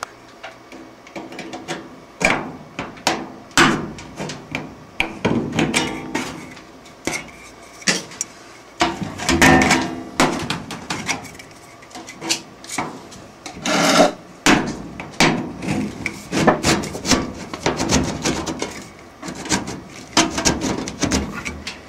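A sheet-metal C-cleat being slid and worked onto the seam of a sheet-metal return-air duct: irregular metallic knocks, clatters and scraping as it is pushed and tapped along the flanges.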